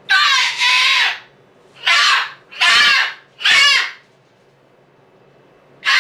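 Moluccan cockatoo screaming: a run of loud, harsh calls in the first four seconds, the first one drawn out and broken in two, then a pause before another scream starts at the very end.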